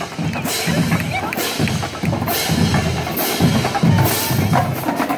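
High-school marching band drumline playing a steady cadence: bass drums thudding under bright cymbal crashes about once a second.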